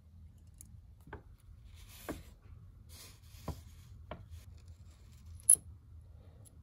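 Small steel chuck jaws and springs of a Stanley egg beater hand drill being handled and fitted into the chuck shell: a few light clicks and some rubbing, with one sharp metallic click about five and a half seconds in.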